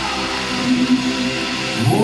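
Live gospel worship band music with guitar, chords held steady; near the end a voice slides up into the next sung phrase.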